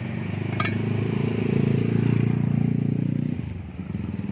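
A motorcycle engine running close by, getting louder and then dropping away about three and a half seconds in. There is a brief metallic clink near the start.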